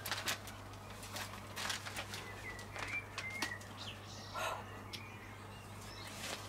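Magazine pages rustling and crackling as they are handled and turned, with a few short high bird chirps near the middle.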